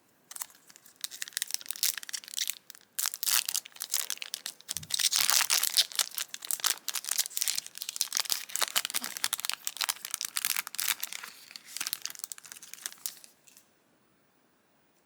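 Foil booster pack wrapper crinkling and tearing as it is opened by hand, a dense run of crackles that stops near the end.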